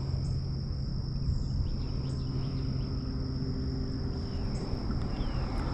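Steady high-pitched insect drone, like crickets, over a low steady rumble, with a few faint bird chirps.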